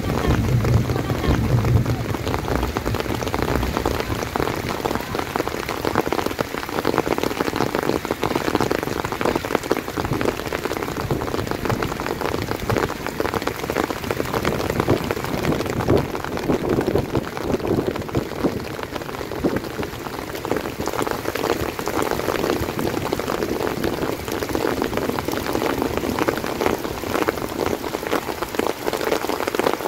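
Heavy rain falling steadily, a dense spray of drops striking nearby surfaces.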